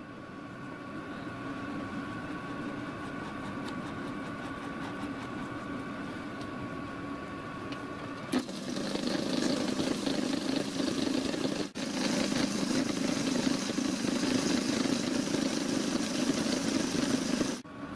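Micro lathe run up by its small electric motor, the spindle and freshly fitted chuck spinning on a test for trueness. A steady faint whine comes first; a click about eight seconds in, and then the lathe runs louder and steadily.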